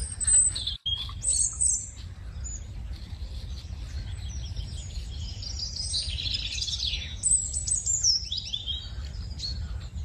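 Small birds chirping and singing, many short high calls one after another, over a steady low rumble.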